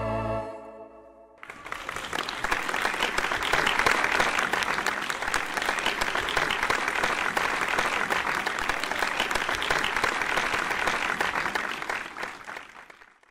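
A choir's final held chord, with an organ underneath, dies away about a second in, then an audience applauds steadily, the clapping fading out near the end.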